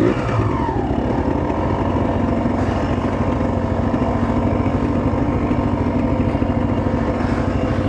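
A quad's engine revs falling away in the first second, then idling steadily.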